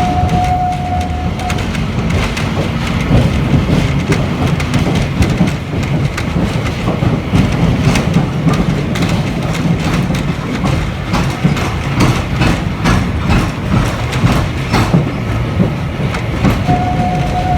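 Iyotetsu Botchan Ressha, a small replica steam train, running on its rails, heard from aboard: a steady rumble with many short wheel clicks over the track. A steady whistle-like tone sounds at the start and again near the end.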